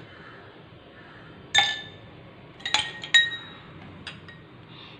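Ice cubes spooned into drinking glasses, clinking against the glass: three sharp clinks with a short ring, about a second and a half in and near three seconds, then a lighter tap.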